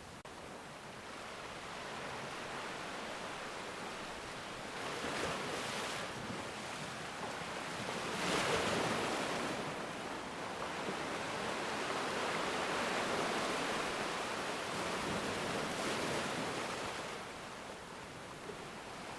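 Sea waves washing ashore: surf that swells and recedes in slow surges, with the loudest swell about a third of the way through and a fading near the end.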